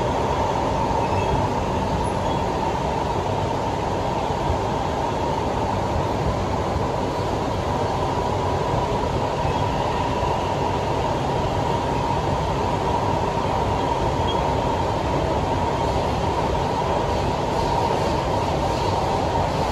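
Cabin noise inside a Siemens C651 MRT train running steadily: an even rumble of wheels and running gear with a steady mid-pitched hum.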